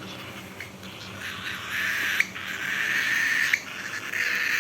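Cockatiel eating eagerly: a steady raspy hiss that grows louder about two seconds in, broken by a few sharp clicks of the beak on the food.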